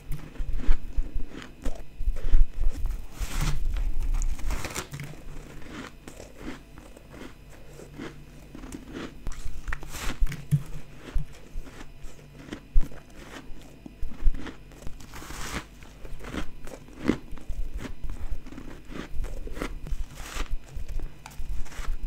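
A person biting and chewing soft white powdery ice chunks, with repeated crunching bites. The bites are loudest in the first few seconds and again from about fifteen seconds in, with a quieter stretch of chewing between.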